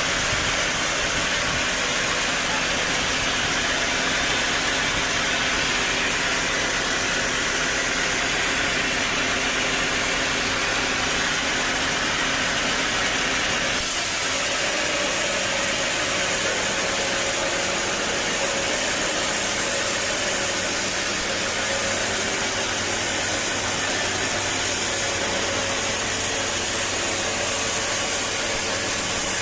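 Sawmill saw and its motor running steadily while cutting a teak log, a loud constant mechanical noise. The sound changes abruptly about halfway through.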